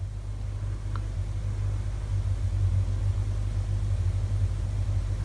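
Steady low hum, with a faint click about a second in.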